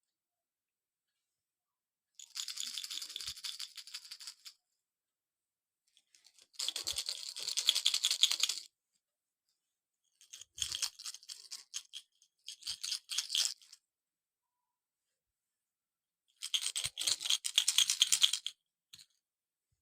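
Crochet baby rattles shaken in five short bursts of fast, bright rattling, with pauses of silence between them.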